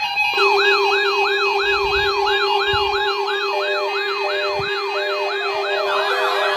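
Several weather alert radios sounding their alarms together when the weekly test signal activates them: repeating siren-like sweeps about three a second over steady tones. About six seconds in, another radio's alarm joins in.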